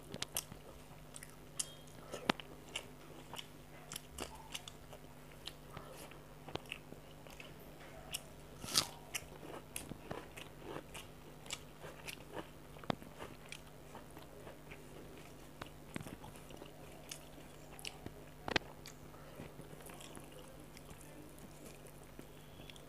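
Close-miked eating by hand: chewing and mouth clicks while eating fried fish with rice, with scattered small crunches and sharp clicks. The loudest clicks come about 9 and 18 seconds in. A faint steady low hum runs underneath.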